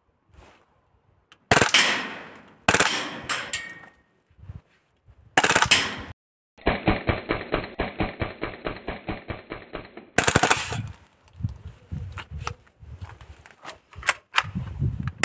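Airsoft AAP-01 gas blowback pistol, built into an AK-style kit with a suppressor, firing full-auto: a few short bursts, then a longer even burst of rapid shots, then one more short burst. Lighter clicks and knocks of the gun being handled follow near the end.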